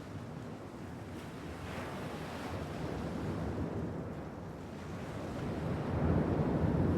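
Sea surf washing in as a steady rushing noise, swelling louder about six seconds in.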